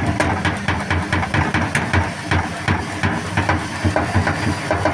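Washing machine knocking hard: its drum bangs repeatedly, about three knocks a second and unevenly spaced, over the low hum of the running machine.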